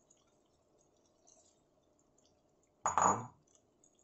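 A metal ladle clanks once against the side of an aluminium cooking pan about three seconds in, as the vegetables are stirred; before that, only quiet room noise.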